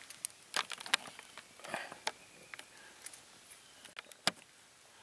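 Close handling noises: a few sharp clicks and knocks with a short rustle, the loudest knock near the end.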